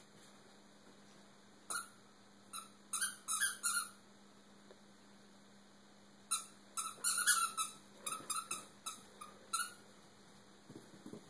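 Squeaky dog toy squeaking in short, quick runs as a German Shorthaired Pointer puppy chews it: single squeaks, then a rapid cluster about three seconds in, and more runs from about six to ten seconds in.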